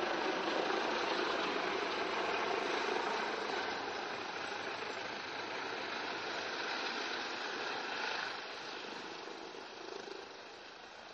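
Rescue helicopter flying low and descending into snow, its rotor and turbine running steadily. The noise eases somewhat about eight seconds in.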